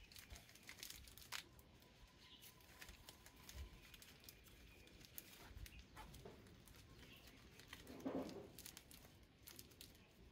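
Faint crinkling and rustling of a plastic bag and plastic tape as the tape is stretched and wrapped around it by hand, with scattered small clicks. A brief low sound comes about eight seconds in.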